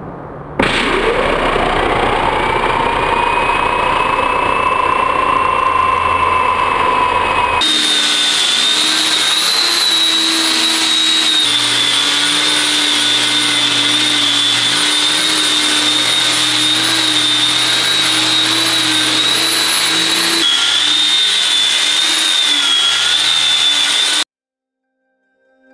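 DeWalt 7-inch angle grinder with an 80-grit sanding backer pad, sanding a wooden tabletop flat. It starts suddenly with a whine that rises as the motor spins up, then runs at a steady high whine, changing abruptly twice and cutting off suddenly near the end.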